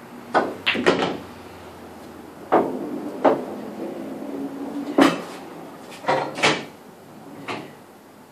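Pool balls clacking: a series of sharp knocks, several in quick pairs, with a low rolling rumble between the knocks from about two and a half to five seconds in.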